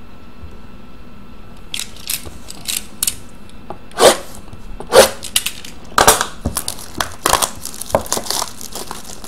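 Plastic shrink wrap on a sealed hobby box of hockey cards being slit and torn off by hand, crinkling and crackling in a quick run of sharp bursts that starts about two seconds in, with two louder crackles around the middle.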